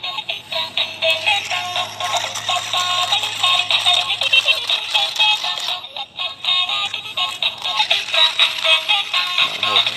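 Tinny electronic jingle with synthesized singing, played through small speakers lacking any bass: the built-in sound chips of battery-operated walking toy animals.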